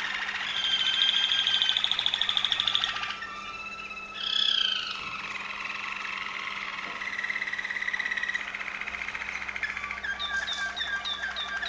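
Waterslager Malinois canary singing: long, rapid rolling trills, broken by a short pause and a brief falling phrase about four seconds in, then more trilling and a run of quick repeated short notes near the end.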